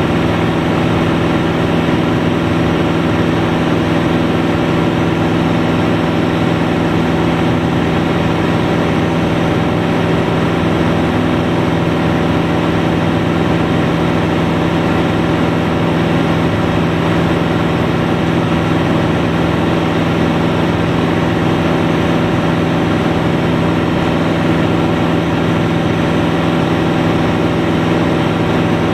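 Single-engine light aircraft's engine and propeller running steadily in flight, heard from inside the cockpit as a constant, unchanging drone with a low steady hum.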